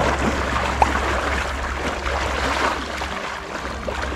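Wind rumbling on the microphone over the rush of lake water lapping at the shore.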